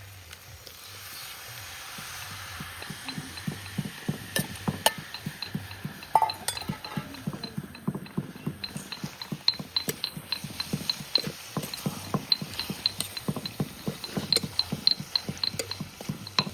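Rapid metallic clinking and tapping, several strokes a second with a high ringing clink, getting busier after the first few seconds: a metal utensil working against a metal cooking pot.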